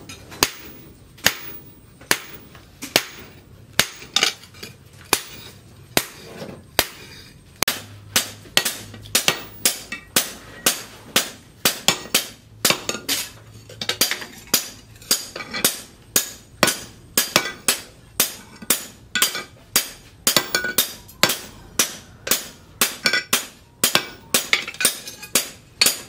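Hand hammer striking red-hot leaf-spring steel on a steel post anvil, forging a cleaver blade. Sharp, ringing metallic blows come about once a second at first, then quicken to about two a second.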